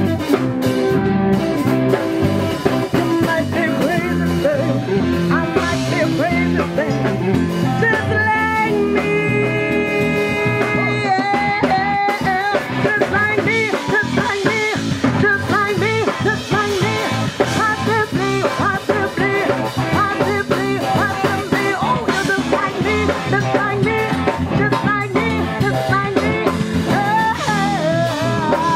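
Live band playing: a woman singing over electric guitars and a drum kit, with a few held notes about a third of the way in.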